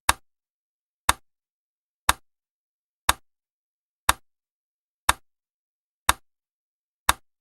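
Countdown timer's clock-tick sound effect, one sharp tick every second, eight ticks in all, with dead digital silence between them.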